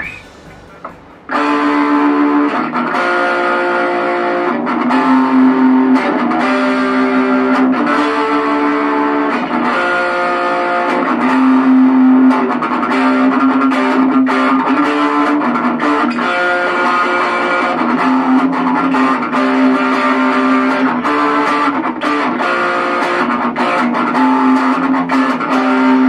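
Electric guitar played through a Belcat G-10 practice amplifier on its overdrive setting: distorted rhythm riffs of short repeated picked strokes and changing chords, starting about a second in.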